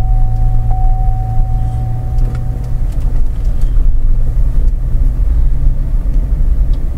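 Car engine and road noise heard inside the cabin while driving slowly: a steady low hum over rumble. A thin steady whine sits over it and stops about three seconds in.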